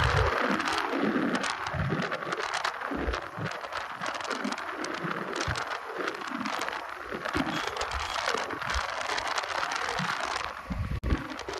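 Wind buffeting and crackling on the microphone of a moving vehicle, with the steady rush of travel noise and irregular low thumps.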